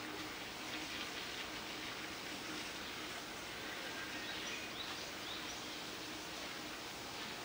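Steady outdoor ambience hiss, with a few faint, short, high chirps about five seconds in.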